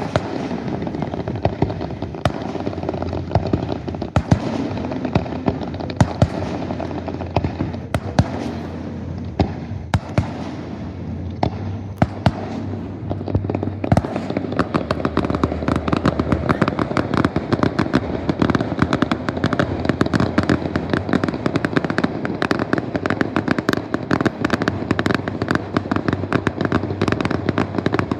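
Aerial fireworks bursting: separate booms every second or so at first, then about halfway through a dense, nonstop barrage of rapid bangs and crackle, the grand finale.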